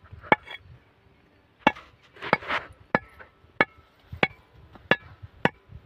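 A broad cleaver chopping a freshwater eel into pieces on a wooden chopping stump. About eight sharp chops land at a fairly even pace, roughly three every two seconds after the first two.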